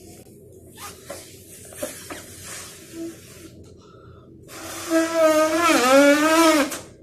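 A rubber balloon being blown up by mouth: first small clicks and rustles as the balloon is stretched and handled, then, about four and a half seconds in, a long hard breath blown into it with a buzzing tone that dips in pitch and comes back up, stopping just before the end.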